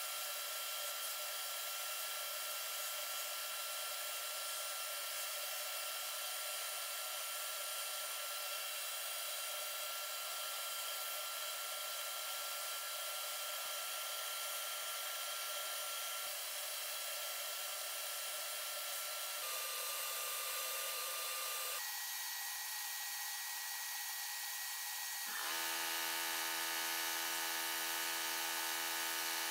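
Glass bead blasting cabinet: the compressed-air nozzle blasting glass bead media onto pistol parts, a steady hiss. The hiss shifts in tone three times in the last ten seconds and is slightly louder near the end.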